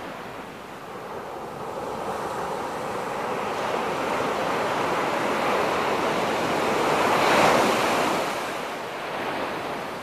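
Sea surf on a sandy beach: a wave breaking and washing up, its rush swelling to a peak about seven seconds in and then fading.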